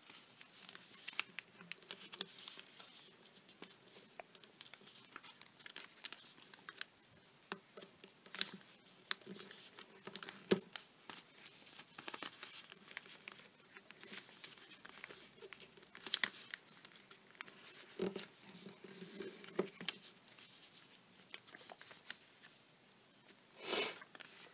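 Origami paper rustling and crackling as it is folded and creased by hand, in soft irregular crinkles and small sharp crackles while fingers press folds flat.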